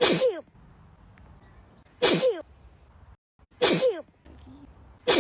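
A girl in a sneezing fit: three loud sneezes about a second and a half to two seconds apart, each a sharp burst that falls in pitch, and a fourth starting right at the end.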